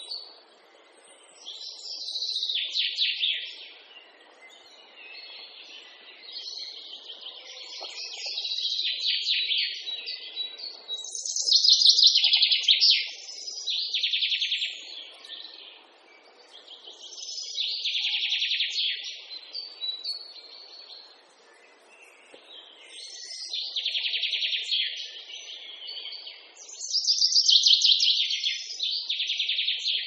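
A songbird singing: phrases of rapid, high trilled notes, each a second or two long, repeating every few seconds with short pauses between.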